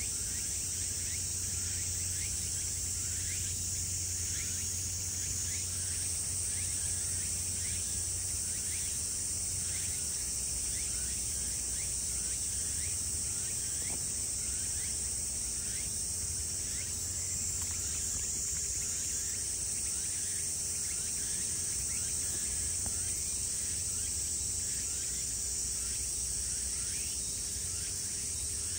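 Steady high-pitched drone of an insect chorus, with faint short chirps repeating evenly over it and a low rumble underneath.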